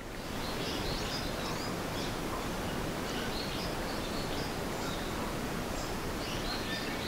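Outdoor ambience: a steady wash of noise with small birds chirping on and off.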